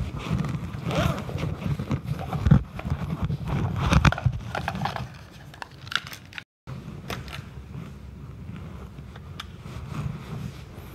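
Microphone handling noise: rumbling, rubbing and scraping with scattered clicks as the recording device is gripped and fiddled with in the hand. The sound cuts out completely for a moment about six and a half seconds in, then goes on as quieter rustling.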